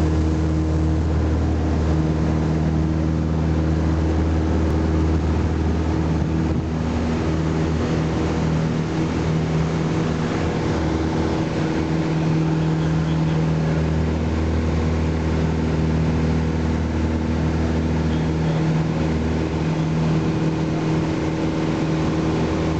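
Piper PA-28 Warrior's four-cylinder Lycoming engine and propeller running steadily, heard inside the cabin during takeoff and climb-out, a loud even drone with no break.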